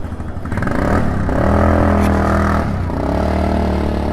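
Cars of a wedding motorcade passing close, engine noise mixed with long steady held tones. The tones grow louder about a second in and break off briefly just under three seconds in.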